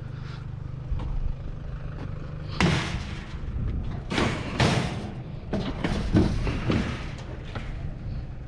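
Scrap steel being handled and loaded: a string of heavy thuds and bangs, about six, from a third of the way in, over a steady low hum.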